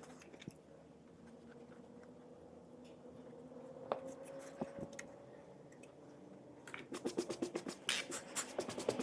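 Faint handling of plastic instrument-cluster parts, with a few small clicks, then from about seven seconds in a quick run of short scratchy rubbing strokes, as the parts are wiped clean.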